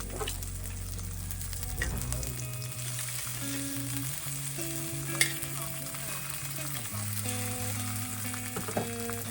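Meat sizzling in a hot pan or on a grill: a steady frying hiss with a few sharp clicks, under soft background music.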